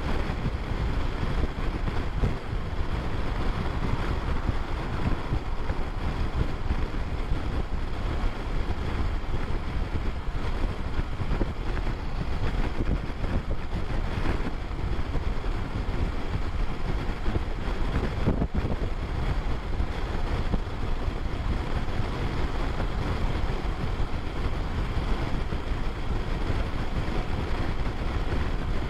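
Steady wind rush on the microphone mixed with the running of a BMW R1150RT's boxer-twin engine and tyre noise, cruising at about 100 km/h.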